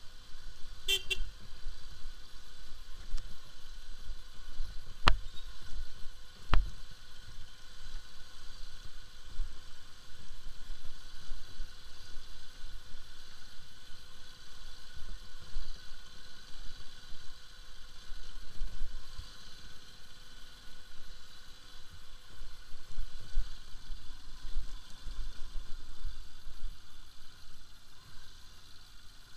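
Bajaj Pulsar RS200's single-cylinder engine running at low speed over a rough, rutted dirt track, with steady rumble and wind on the mic. A brief horn beep comes about a second in, and there are two sharp knocks at about five and six and a half seconds in.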